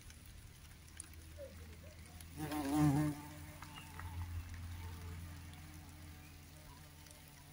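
A bumblebee buzzing as it flies among flowers, a steady hum that grows loud and wavers in pitch for about half a second, about two and a half seconds in, as it passes close.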